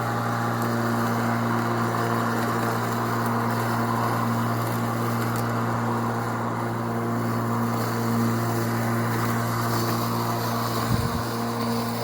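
Bosch CityMower 18-volt cordless lawnmower's electric motor and blade running at a steady, even hum.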